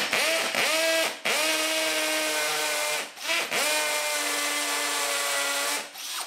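DeWalt 18 V combi drill in hammer-action mode drilling into a masonry block with a masonry bit, the hammer mechanism rattling over the motor's whine. It runs in three goes, briefly easing off twice, and the motor pitch sags as each run takes up the load.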